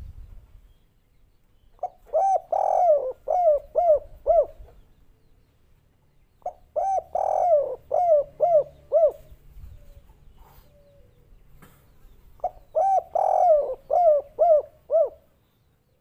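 Spotted dove (tekukur) cooing three song phrases a few seconds apart. Each phrase is a string of rounded coos with one longer falling coo in the middle, ending in a quick run of short coos: the 'kuk 3' song type.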